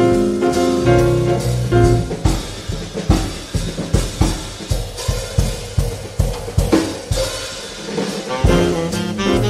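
Jazz drum kit taking a solo break, with snare, bass drum and cymbals struck in quick patterns after the band's notes drop away about two seconds in. The saxophone and band come back in near the end.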